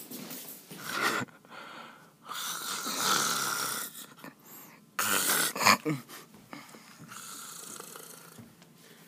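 A person snoring loudly, about four long snores in a row.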